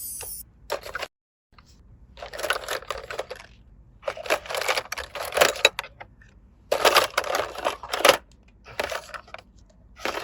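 Small hard objects clattering and rattling as they are handled, in about six separate bursts each lasting up to a second or so, with short pauses between.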